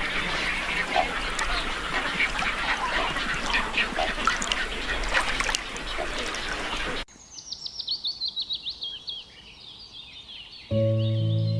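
A large flock of waterfowl calling and honking over one another in a dense, noisy chorus. It cuts off suddenly about seven seconds in. Then a single small bird sings a fast run of high chirps that fall in pitch, and soft music begins near the end.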